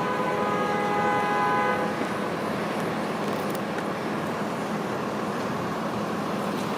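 Train running with a steady rumble, its horn sounding a chord of several tones for about the first two seconds.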